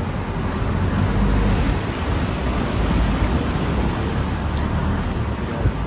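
Canal passenger boat under way: its engine runs with a steady low hum under a constant rush of water and wind.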